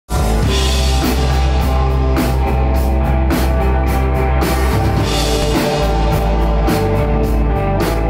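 A live rock band playing an instrumental jam: electric guitar, bass guitar and drum kit, with a heavy steady bass and cymbal strikes roughly every second.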